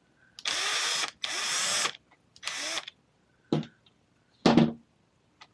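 Three short rasping bursts of a small tool at work, each about half a second long, then two sharp clicks about a second apart, as parts of an RC truck's steering rack are worked loose.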